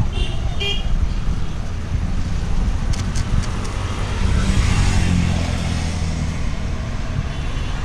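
Street traffic rumbling steadily, with a motor vehicle's engine passing close and swelling louder about halfway through. A few sharp light clicks come about three seconds in.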